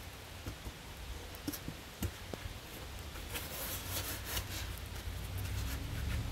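Handling noises of a foam-board quilt box being lowered onto a beehive and settled into place: clothing rustle and scattered light knocks and scrapes, busiest around the middle, over a low steady rumble.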